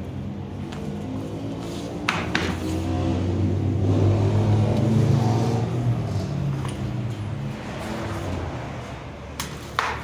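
A motor vehicle engine running nearby, a low hum that swells to its loudest around the middle and then eases off, with a few sharp knocks from the tire and tools being handled, about two seconds in and again near the end.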